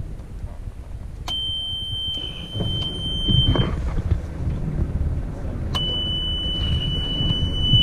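Two long, high electronic beeps, each lasting about two and a half seconds with a pause of about two seconds between them, over a steady low rumble.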